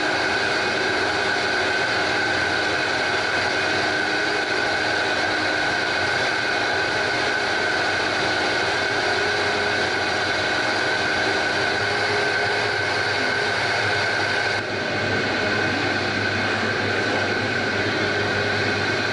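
Cheese vat's motor-driven stirrer running steadily in a vat of freshly set milk, as the curd is cut and stirred for halloumi, with a steady machine hum and a high whine.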